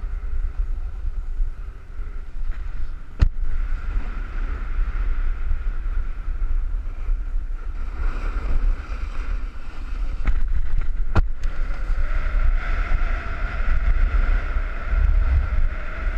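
Wind buffeting a head-mounted GoPro's microphone while snowboarding downhill, with the board's edges hissing and scraping over packed snow, louder in the second half. Two sharp knocks, about three seconds in and about eleven seconds in.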